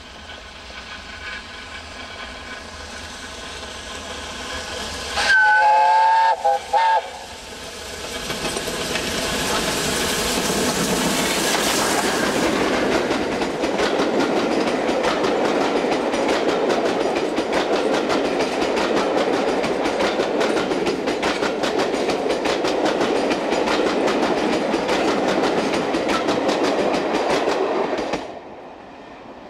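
Steam locomotive 60163 Tornado, a Peppercorn A1 Pacific, approaching with a rising noise and sounding its whistle briefly about five seconds in. Its train of coaches then passes at speed with a steady rush and a rapid clickety-clack of wheels on the track, which cuts off sharply near the end as the last coach goes by.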